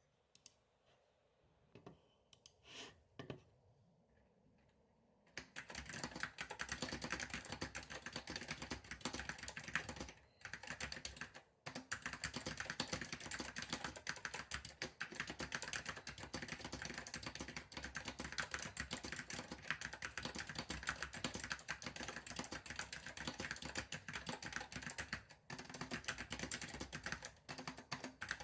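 Apple M0116 keyboard with Alps SKCM Salmon tactile switches being typed on. A few scattered keystrokes come first, then fast continuous typing starts about five seconds in, broken by a few brief pauses.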